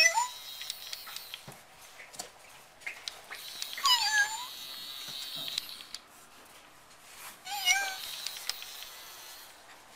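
Robotic toy cat meowing three times, each a short electronic meow that rises and falls in pitch: once right at the start, once about four seconds in and once near the end. Light clicks and taps sound between the meows.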